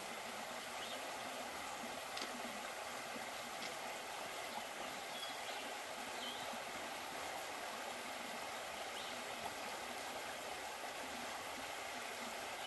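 Shallow rocky creek flowing steadily over stones and ledges.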